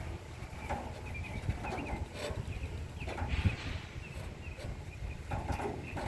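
Small birds chirping over a steady low rumble of wind on the microphone, with scattered knocks.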